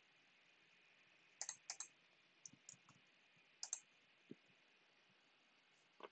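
Faint scattered clicks of a computer mouse and keyboard, several coming in quick pairs, over a low steady hiss.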